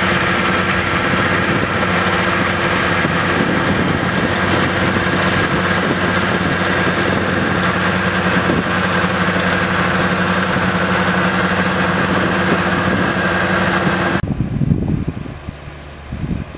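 Fendt 939 tractor's six-cylinder diesel engine running steadily under load while ploughing, with a steady high whine over the engine note. About fourteen seconds in the sound cuts off abruptly to a much quieter engine sound with a few knocks.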